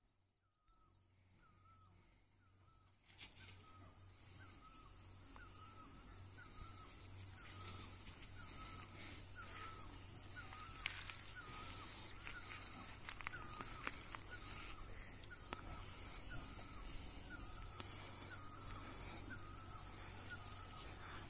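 Rural outdoor ambience: a steady high-pitched insect drone with a bird repeating one short call over and over at an even pace, a little faster than once a second. A few faint clicks are heard. The sound fades in over the first three seconds.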